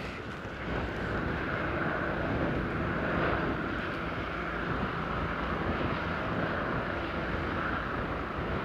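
Lava fountain of a fissure eruption, a steady rushing roar as molten lava jets and spatters from the vent of a spatter cone.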